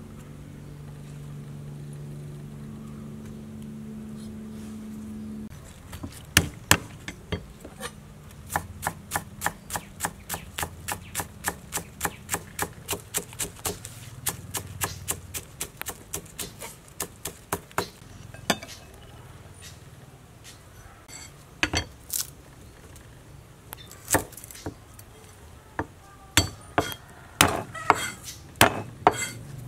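Large cleaver-like kitchen knife chopping green onions and then garlic on a round wooden chopping block: quick, even strokes about three a second, then scattered strikes, then a faster run near the end. A steady low hum fills the first five seconds before the chopping begins.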